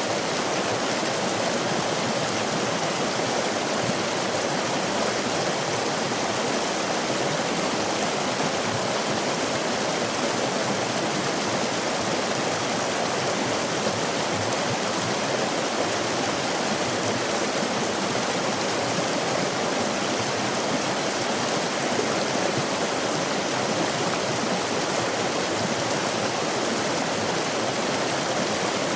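Stream water flowing and splashing over rocks, a steady even rush.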